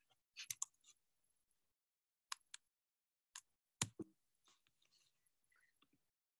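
Near silence, broken by a few faint, short clicks scattered through it.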